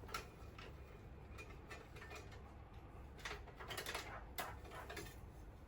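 Faint scattered clicks and scrapes of small hard parts being handled while a lid is taken off.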